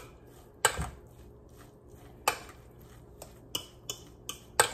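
A utensil clinking and scraping against a stainless steel mixing bowl as mashed potato filling is stirred: irregular clinks, several strong and some faint, the loudest near the end.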